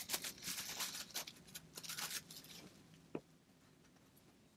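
Clear plastic cling wrap crinkling and rustling under fingertips as it is rubbed over a Mod Podge-glued paper napkin to smooth it flat. It dies away after about two and a half seconds, leaving one small tick a little later.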